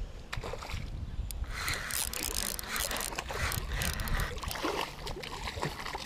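Water splashing and sloshing as a hooked smallmouth bass thrashes at the surface during the fight, with scattered sharp clicks and splashes throughout.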